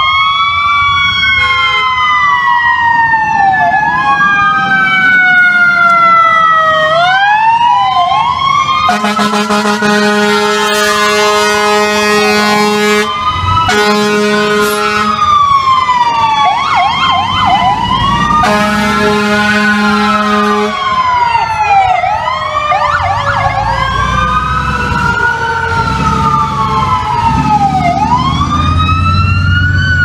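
Several fire engine sirens wailing together in overlapping rising and falling sweeps, with short bursts of fast yelping. A fire truck air horn sounds three long blasts in the middle.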